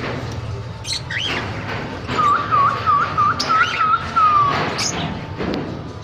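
Caged parrots calling: a couple of sharp, rising chirps, and in the middle a quick run of about eight whistled notes ending in a short slide down.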